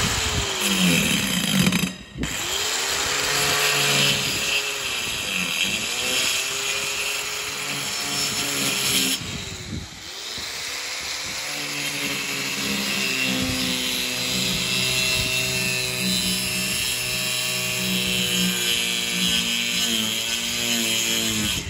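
Angle grinder with a cutting disc cutting oval holes into a plywood sheet. Its motor whine sags in pitch as the disc bites into the wood and climbs again as it eases off, over and over, with a brief break about two seconds in.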